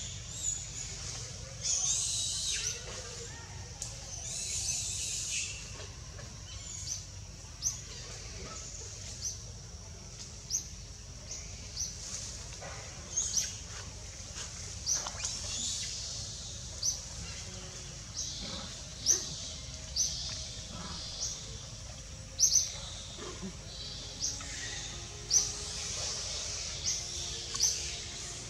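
Birds calling: a short, sharp, high chirp repeated about once a second, with hissy bursts of calling in the first few seconds, over a steady low rumble.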